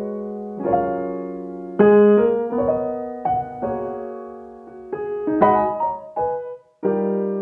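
Background piano music: gentle chords and single notes, each struck and left to fade.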